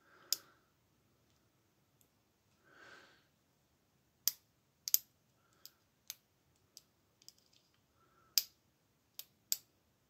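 Sharp metallic clicks of a dimple pick and tension tool working inside a wheel clamp's dimple lock cylinder, about a dozen irregular clicks, most of them in the second half. A soft breath is heard near three seconds in.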